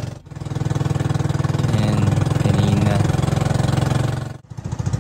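Pump boat's engine running steadily under way, a low drone over water and wind noise. The sound drops out briefly just after the start and again near the end, after which the engine note pulses evenly.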